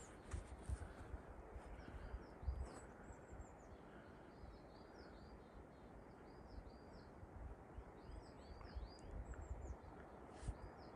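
Small songbirds chirping in runs of quick, high, short notes, one run about three seconds in and another near nine seconds, over faint outdoor rumble with scattered low thumps.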